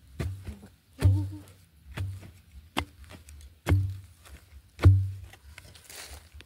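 A long-handled iron digging spade being driven into dry, root-filled soil: six dull thudding blows, about one a second.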